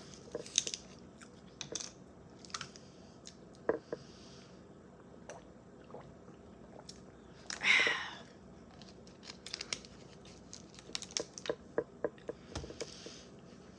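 Close-miked mouth sounds of a person sipping water and eating: small wet clicks and swallows, soft breaths, and one louder burst about eight seconds in.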